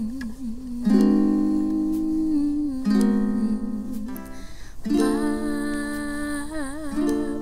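Background music: a voice sings long held notes with a wavering vibrato, without clear words, over plucked guitar or ukulele.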